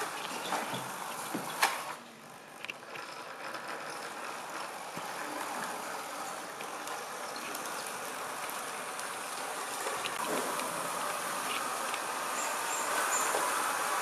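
3D-printed S-scale model train running on its track: a steady rattle of wheels and motor that grows louder near the end. A sharp click about one and a half seconds in.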